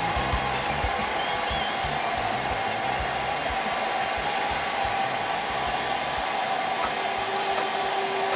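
A machine running continuously: a steady, even rushing noise with a constant hum in it, and a second, lower steady tone joining about seven seconds in.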